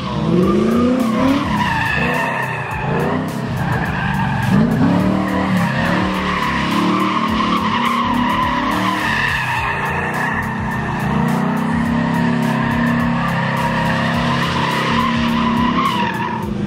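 Fourth-generation Chevrolet Camaro doing donuts: the engine revs up and down while the spinning rear tyres squeal and skid without a break.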